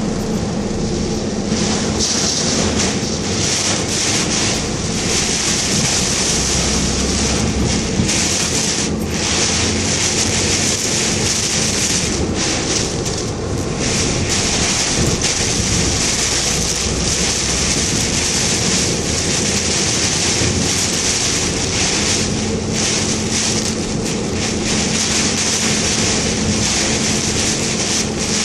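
Heavy typhoon rain and wind lashing a moving car, a dense steady rush that briefly eases a few times, with a faint steady hum from the car underneath.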